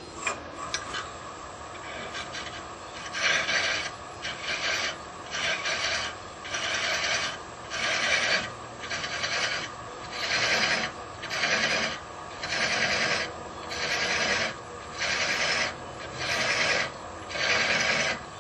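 Hand thread chaser scraping across the threads of a wooden insert spinning on a wood lathe, in even strokes about one a second over the lathe's steady hum; the strokes begin about three seconds in. The threads are being cut down because they are still too large to fit.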